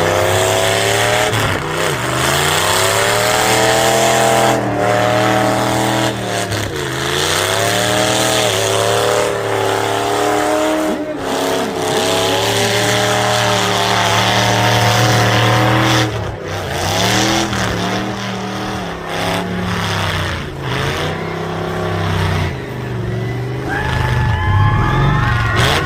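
Demolition derby car engines revving up and dropping back over and over, with several sharp bangs of cars crashing into each other. Near the end a high squealing whine sets in.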